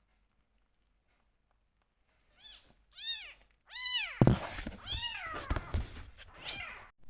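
Rescue kitten meowing loudly, a run of meows starting about two seconds in, each rising then falling in pitch. Knocks and rustling join from about halfway through.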